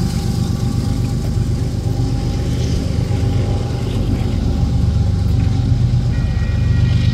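An engine running steadily with a deep rumble. A few thin, steady higher tones sound over it, and more join about six seconds in.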